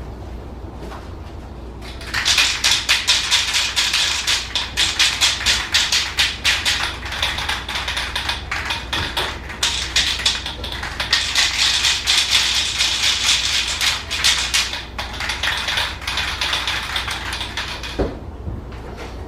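Aerosol can of copper head-gasket spray in use: a run of quick rattling strokes and hissing, starting about two seconds in and stopping about a second before the end.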